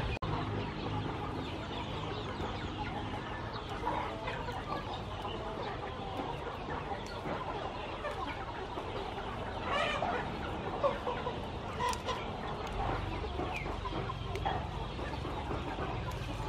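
Chickens clucking in the background, with a few louder clucks scattered through.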